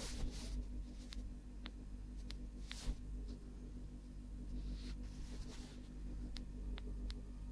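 A smartphone being handled on a bed: a scatter of faint sharp clicks and taps on the phone and a few soft rustles, over a low steady hum.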